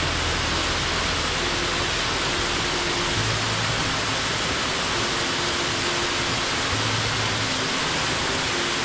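Steady rush of water from a mountain waterfall, an even hiss with no breaks.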